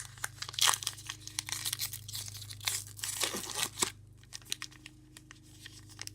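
A 2019 Topps Gypsy Queen baseball card pack being torn open, its wrapper crackling and crinkling for about four seconds, then a few scattered light ticks as it is handled.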